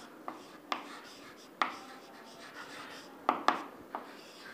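Chalk writing on a chalkboard: a handful of sharp taps as the chalk strikes the board, two close together a little past three seconds in, with faint scratching strokes between.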